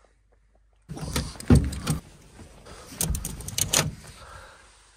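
Knocks, scrapes and clatter of someone climbing out of the back of a pickup truck and handling its diamond-plate aluminium panel. They come in two bursts, about a second in and again about three seconds in, with a few sharp bangs.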